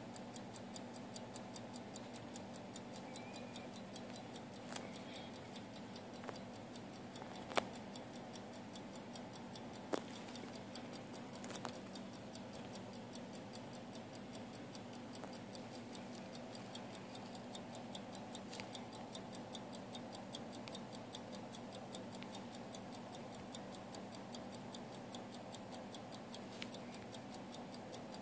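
Illinois Watch Co. pocket watch movement ticking with a fast, even beat, running after being freshly cleaned, reassembled and lubricated. A couple of sharper, louder clicks come through about a quarter and a third of the way in.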